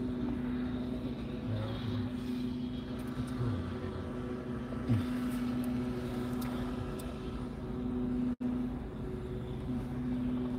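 Car interior noise: a steady engine hum over a low rumble, with a small click about five seconds in and the sound cutting out for an instant near the end.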